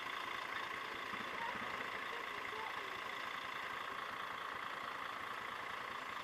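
Steady idling of engines in stopped traffic: a motorcycle at a standstill, with a Mercedes-Benz Citaro city bus standing just ahead.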